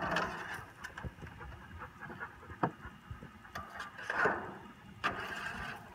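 Metal tongs clicking and scraping against a metal grill pan as grilled zucchini and squash pieces are picked up, in a few short scrapes and scattered clicks.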